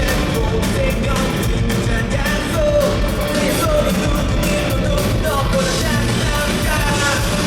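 Live rock band playing: drum kit, electric guitars and bass, with a bending melody line over it and some singing.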